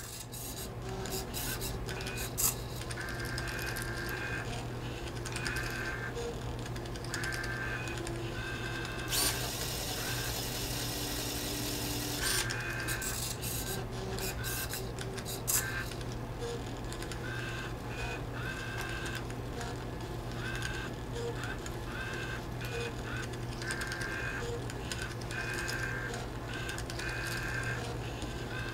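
A homemade Turing machine at work over a steady low hum: its tape drive whines in short spells again and again as the tape steps from cell to cell, with clicks from the pen and eraser mechanism. About nine seconds in, a scratchy rubbing lasting some three seconds is the eraser wiping a mark off the paper tape.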